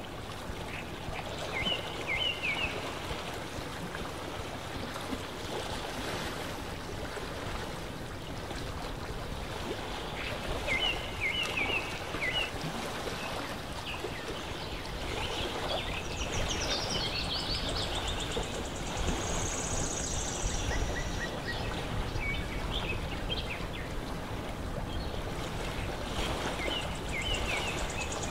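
Lakeside ambience: a steady wash of water lapping, with a bird chirping in short clusters several times and a high thin trill about two-thirds of the way through.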